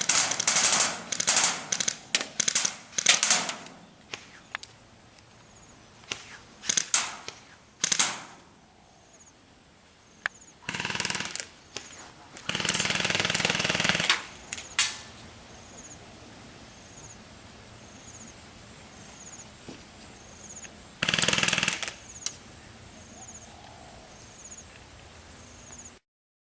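Airsoft BB guns firing: a quick string of sharp shots in the first few seconds and a few scattered shots, then several longer rattling bursts of rapid fire around the middle and near the end.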